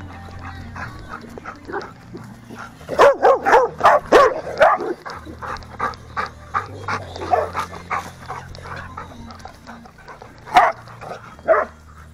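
Dogs barking during play: a quick run of barks about three seconds in, then a few single barks near the end.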